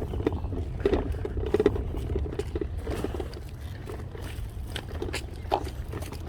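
Footsteps on a park path, about two soft steps or scrapes a second, over a steady low rumble of wind on the microphone.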